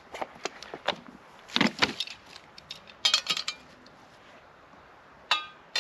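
Aluminium camp-stove pans being handled: a series of knocks and clinks of metal cookware, ending in a clink with a short metallic ring near the end.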